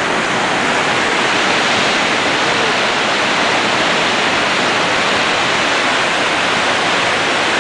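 Steady, loud rush of a river running near flood stage through a rapid.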